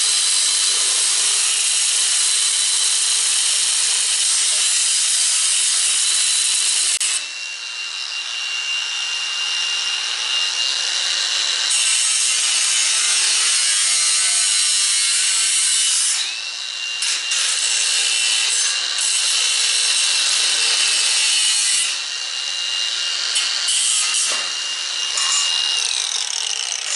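Cordless brushless angle grinder with a cutting wheel cutting through metal: a loud, steady grinding hiss over the motor's high whine. It eases briefly about seven, sixteen and twenty-two seconds in as the wheel comes off and goes back into the cut, and the motor winds down at the end.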